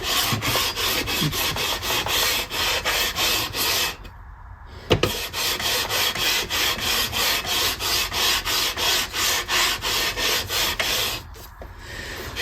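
Sanding block rubbed back and forth along a guitar fretboard to level it, in quick regular strokes of about three a second. The strokes stop briefly about four seconds in, with a sharp knock just after, then go on before easing off near the end.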